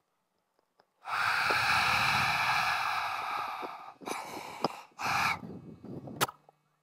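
A performer breathing out hard into a handheld microphone: one long breathy hiss of nearly three seconds, then two shorter ones, an eerie breathing for Death as she appears in the story. A sharp click comes near the end.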